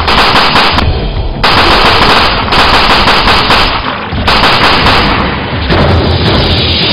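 Automatic rifle fire in long rapid bursts, with short breaks about a second in and again around the four-second mark.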